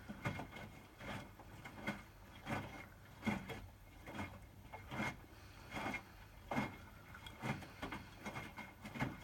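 Hotpoint WMFUG 942 front-loading washing machine in its wash phase: the drum turns and the wet bed-and-bath load tumbles, making a soft thud or slosh about every 0.8 seconds over a faint steady hum.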